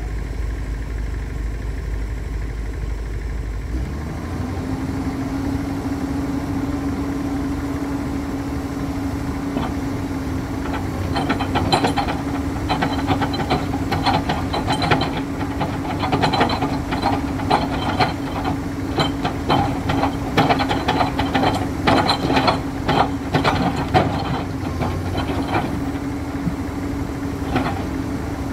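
Komatsu PC210 hydraulic excavator's diesel engine running, rising about four seconds in to a steady higher hum as the excavator bucket is put to work pressing a steel sheet pile into the mud. From about eleven seconds in, rapid irregular knocking and rattling join the hum.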